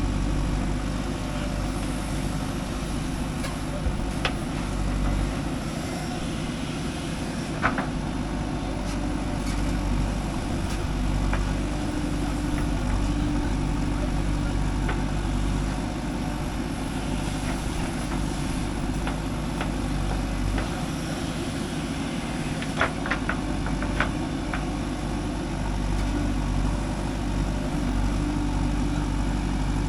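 Backhoe loader's diesel engine running steadily as it works, with a few sharp metallic clanks about eight seconds in and again near the three-quarter mark.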